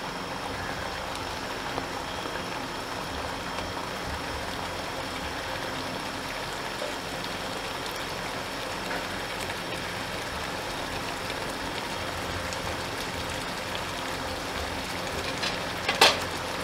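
Chicken pieces frying in oil in a pan on a gas stove, a steady even sizzle. A couple of sharp knocks come near the end.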